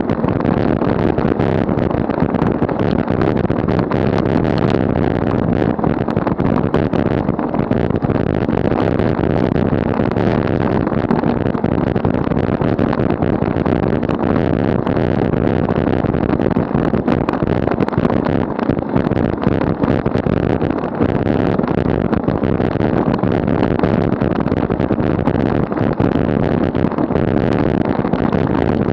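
Steady rushing noise from a bicycle-mounted camera while riding, wind on the microphone mixed with the rumble of tyres on the asphalt.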